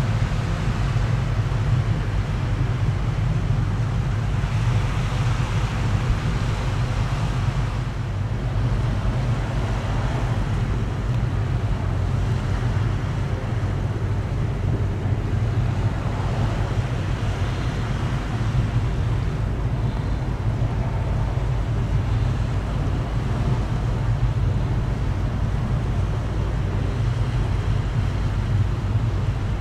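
Wind buffeting the microphone as a steady low rumble, with small river waves washing and a hiss that swells and fades a couple of times.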